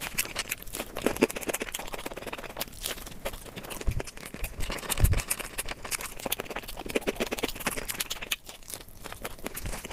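Close-miked ASMR eating sounds: chewing with wet mouth clicks, smacks and crunches in quick succession, and a dull thump about five seconds in.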